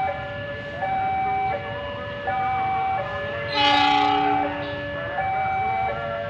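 A railway level-crossing alarm alternates between two electronic tones, switching about every three-quarters of a second. About halfway through, a diesel locomotive horn gives one short, loud blast of about a second with a rough, hoarse edge, not a clean chord, typical of the hoarse horn on locomotive CC 201 77 16.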